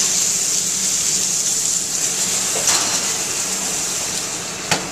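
A thick pork chop sizzling steadily in a hot cast iron skillet, with a light click about halfway through and a sharper knock near the end.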